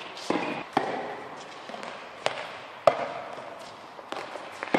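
Tennis balls struck by children's rackets and bouncing on an indoor court, about five sharp hits at irregular intervals, each echoing in the hall.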